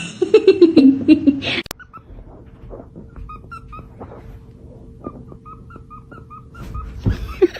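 A pet animal's loud call at the start, falling in pitch and lasting about a second and a half, followed by quieter scattered clicks, with another loud sound near the end.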